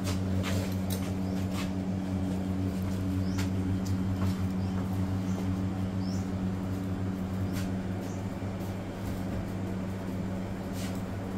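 A steady low mechanical hum with scattered short clicks and brief high squeaks over it.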